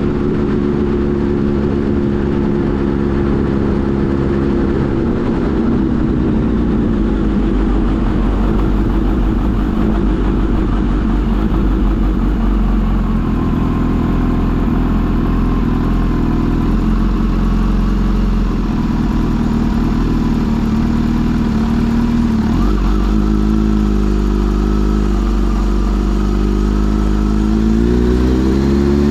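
Kawasaki Z H2 SE's supercharged inline-four engine running under way. The engine note drops over the first few seconds, holds fairly steady with a couple of sudden shifts in pitch, then rises again near the end.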